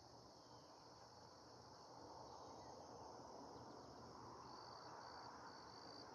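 Near silence with a faint, steady, high insect chorus, and a run of short, evenly spaced high chirps near the end.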